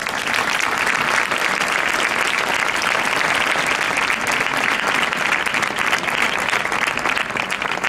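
Crowd applauding after a poem is read, breaking out suddenly and thinning out near the end.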